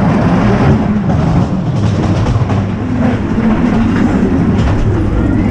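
Ghost train ride car rolling along its rails, a steady loud rumble of wheels on track with some clatter.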